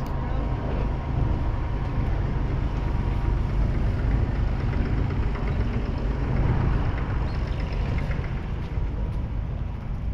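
Massey Ferguson 6290's 6.0-litre six-cylinder diesel engine running steadily, a constant low rumble.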